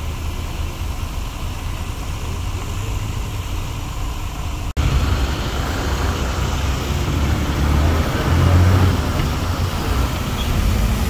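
Road traffic noise: a steady low rumble of car engines with a hiss over it. The sound drops out for an instant about five seconds in and comes back with the hiss louder.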